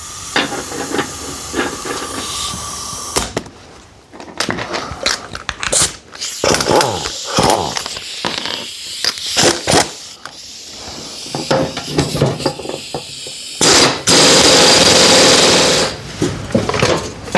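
Pneumatic impact wrench on a mower-deck blade spindle nut: clinks and rattles of tools and metal parts, then a loud, steady run of the wrench for about two seconds near the end.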